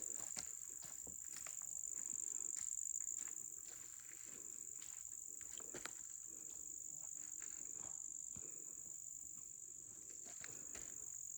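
Steady high-pitched chorus of insects such as crickets or katydids, a continuous shrill drone, with scattered soft clicks over it.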